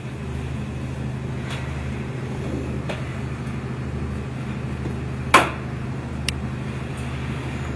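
A steady low mechanical hum, with one sharp knock about five seconds in and a few fainter clicks.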